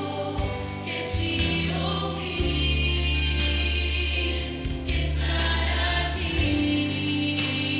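Choir singing sustained chords over a low held bass, the chords changing every few seconds.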